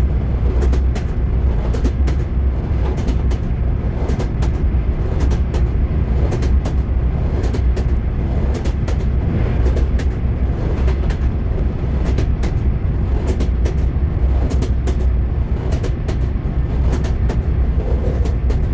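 Train wheels clacking over rail joints in a steady, repeating clickety-clack, over a continuous low rumble of the moving train.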